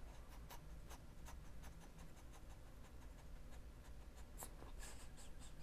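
Faint close-up scratching and light ticking of a drawing tool's tip stroked and tapped against the camera and microphone, in irregular strokes a few times a second.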